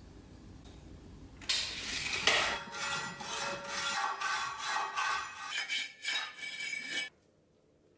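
Hand file rasping back and forth across a thin metal rod held in a bench vise, in quick repeated strokes of about three a second that begin about a second and a half in and stop suddenly near the end.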